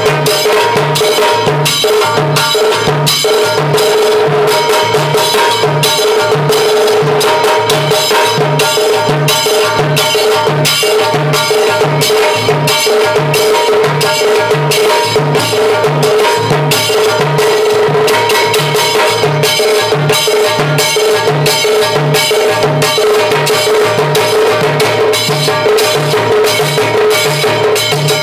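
Drums played together in a fast, steady groove, with dense stick strokes over a low beat that repeats about twice a second. A hand drum joins the stick-played drum with the Evans head.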